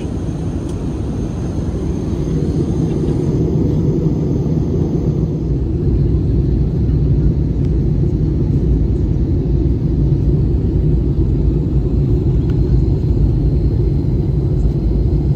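Steady low rumble of an Airbus A320-200 heard from inside the passenger cabin, made by its engines and the airflow around it while descending to land. The rumble grows louder over the first six seconds or so, then holds steady.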